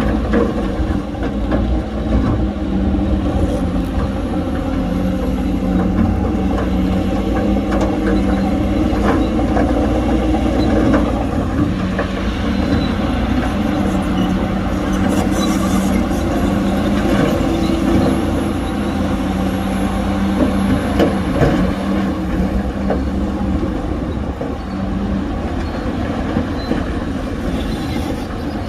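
Heavy diesel earthmoving machinery running steadily under load, with scattered metallic clatter over the engine.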